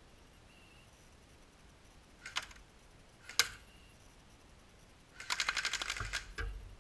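Airsoft gun firing at a vinyl privacy fence: two single sharp cracks about a second apart, then a rapid burst of about a dozen shots lasting about a second, with one more shot just after.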